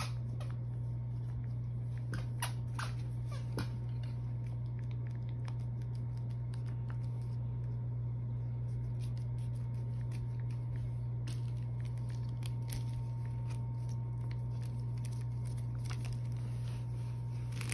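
A steady low hum, with light scattered clicks and the crisp rustle of a sheet of paper being handled.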